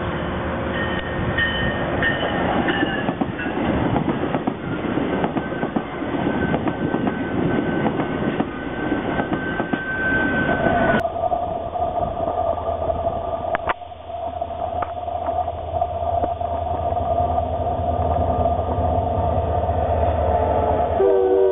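An AMT bi-level commuter train rolls past, its wheels rumbling on the rails, with the diesel locomotive at the rear going by near the middle. After a sudden change about halfway, a VIA Rail passenger train's coaches roll past with a steady whine over the rumble of the wheels.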